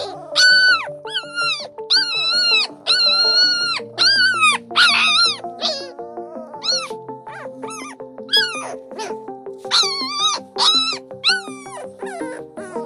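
Newborn puppies crying in high, thin, mewing whines, about one a second and each about half a second long, as young puppies cry while their mother is away from the litter.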